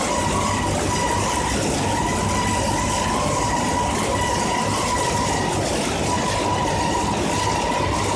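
Sawdust biomass burner and rotary drum dryer running steadily: a continuous heavy machine rumble with a steady high whine over it.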